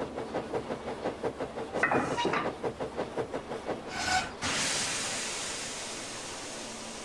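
Small steam tank engine puffing with a fast regular chuff, about four beats a second, with two short high tones near two and four seconds in. It then stops and lets off a long, steady hiss of steam that slowly fades.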